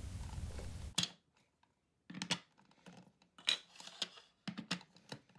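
Plastic K'NEX building blocks clicking and knocking together as round torso pieces are pressed onto a stack: a handful of short sharp clicks at irregular spacing.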